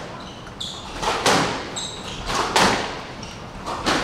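Squash rally: sharp cracks of a squash ball struck by rackets and hitting the walls, about one every second and a half, ringing in the enclosed court. Short squeaks of shoes on the wooden floor twice in the first half.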